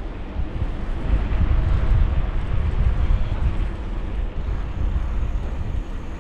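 Road traffic passing close by: a steady rumble of cars and their tyres, growing louder about a second in.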